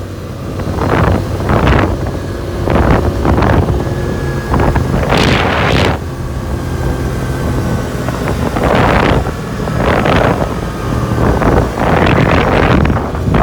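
CFMoto four-wheeler's engine running at a steady speed while riding, with wind buffeting the microphone in repeated gusts.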